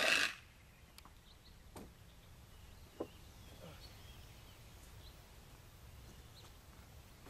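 A cordless saw cutting a wooden rafter stops a moment in, followed by quiet outdoor ambience with a couple of light knocks of tool handling and faint bird chirps.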